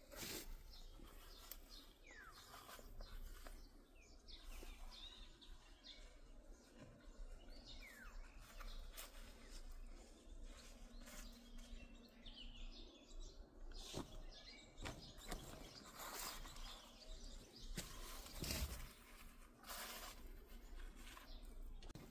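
Faint outdoor ambience with birds chirping now and then, and a few soft knocks, the clearest in the second half.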